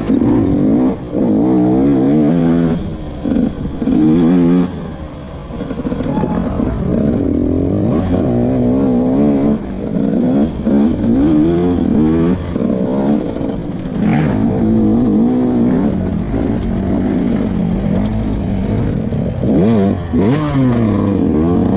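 KTM 125 two-stroke dirt bike engine heard on board, revving up and down again and again as the throttle is opened and closed. The pitch rises and falls with each burst, with brief drops in loudness when it comes off the gas, around a second in and again around five seconds in.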